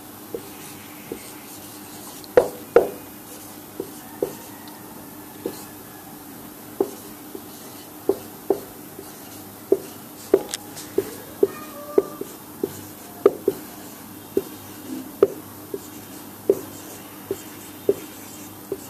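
Marker pen writing on a whiteboard: short, sharp taps and scratches at an irregular pace, about one or two a second, as the letters are drawn.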